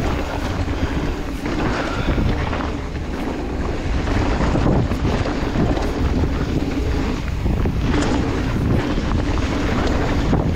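Wind rushing over the microphone and the rumble of a mountain bike rolling fast down a dirt trail, steady throughout.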